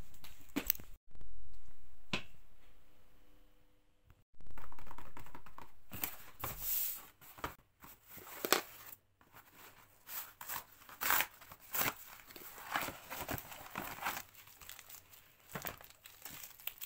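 Packaging being torn open and crinkled by hand: an irregular run of rips, rustles and clicks, busiest from about four seconds in.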